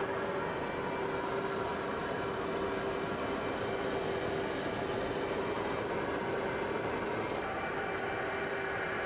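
Steady drone of aircraft engines heard from an aircraft in flight: an even rushing noise with a constant hum through it. About seven seconds in, the upper hiss abruptly turns duller.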